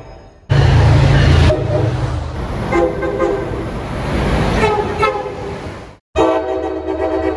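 Train horns passing trackside: a loud low rumble and rushing noise from a passing train, with its horn sounding and swelling twice over it. After an abrupt cut, another train's horn sounds a steady chord.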